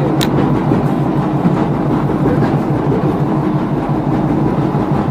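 Boat engine running steadily, a constant low hum under an even hiss.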